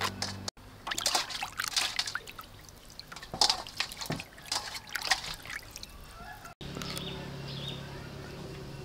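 Water splashing and dripping in irregular little splashes as blocks of tofu are rinsed by hand in a metal bowl of water. It stops abruptly a little over six seconds in, and a steady low hum follows.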